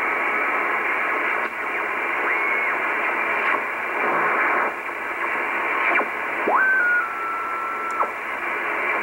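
Icom IC-R8500 communications receiver in upper sideband being tuned across the 25 MHz band: steady static hiss with no station heard, the band being quiet. A short whistling tone comes through about two seconds in, and a longer one about six and a half seconds in that slides up in pitch, steps down and then holds until about eight seconds, as signals pass through the tuning.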